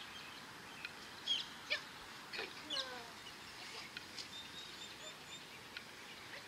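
Songbirds chirping and calling: a few sharp high chirps and quick falling notes between about one and three seconds in, then a run of thin high notes.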